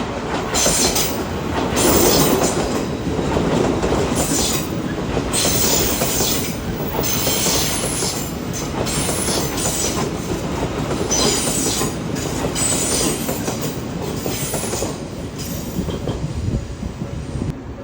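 Odakyu Line train passing over the level crossing, a continuous rail rumble with repeated high-pitched squeals from the wheels.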